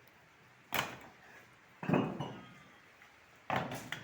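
Three sharp knocks of hard objects struck together, roughly a second apart, each with a short ringing tail; the third breaks into a quick rattle of smaller hits.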